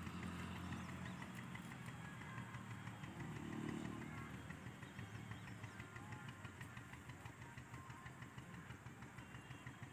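A motor vehicle engine running faintly, swelling about three to four seconds in and then fading away.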